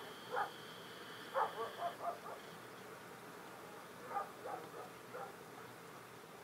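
Short animal calls in quick clusters of three or four, with a faint steady high whine that stops about two seconds in.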